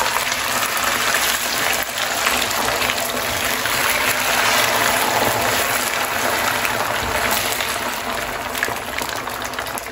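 Semolina, egg and milk batter poured into hot ghee and melted sugar in a frying pan, sizzling and bubbling steadily.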